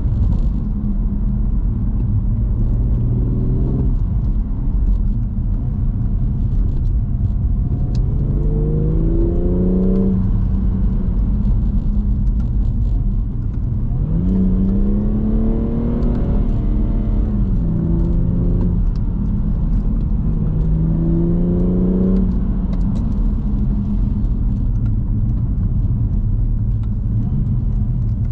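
2018 BMW M240i's turbocharged 3.0-litre inline-six running hard, its pitch rising in about four separate pulls and falling back between them, over a steady low road rumble.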